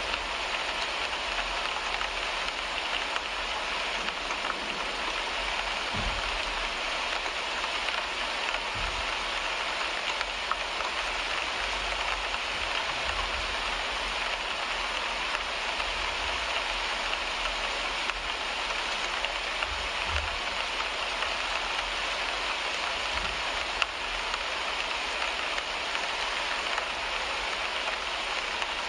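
Rain falling on a car windshield: a steady, even hiss of drops striking the glass, with a few brief low rumbles now and then.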